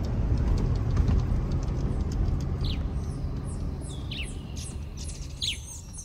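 Low rumble of a car driving along a road, fading away through the first half, then birds chirping: a series of short calls that each sweep quickly down in pitch, starting about two and a half seconds in.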